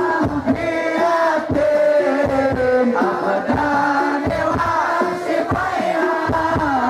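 A congregation singing a sholawat (Islamic devotional praise of the Prophet) together, with wavering, ornamented melodic lines over repeated low percussive knocks.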